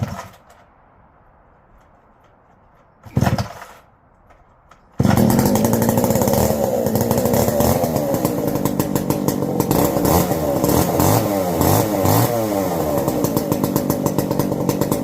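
Two-stroke engine of a 1970s Jonsered 90 chainsaw: two short bursts, then about five seconds in it starts and keeps running, its pitch rising and falling several times.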